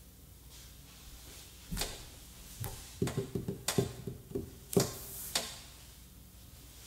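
A string of about a dozen sharp clicks and knocks, irregularly spaced, between about two and five and a half seconds in, some with a brief ring, over a faint steady hum.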